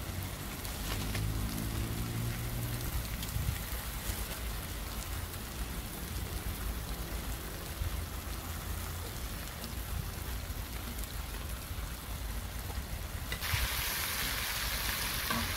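Pork belly and neck sizzling steadily on a hot cast-iron cauldron-lid grill over a fire, with small crackles and spits. The hiss grows brighter and a little louder about thirteen seconds in, as fresh vegetables go onto the hot lid.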